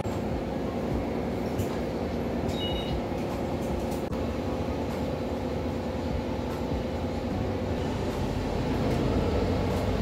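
City bus engine and road rumble heard from inside the passenger cabin: a steady low drone with a hum. A short high two-tone beep sounds about two and a half seconds in.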